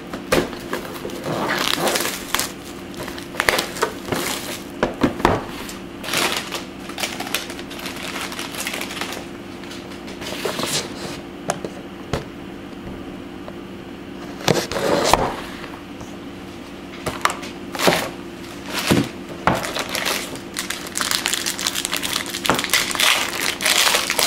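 A trading-card box being opened by hand and its wrapped packs handled: irregular crinkling and crackling of pack wrappers with cardboard scrapes, clicks and a few louder bumps, over a faint steady hum.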